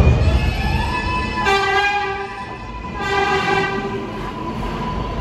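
New York City subway train sounding its horn twice, about a second each, over the low rumble of the train and a high whine that rises over the first second and then holds steady.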